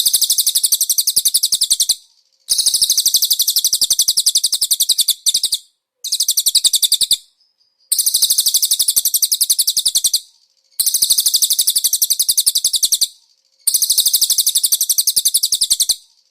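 Cililin bird song: seven rapid, high-pitched trills of about two seconds each, with short pauses between them.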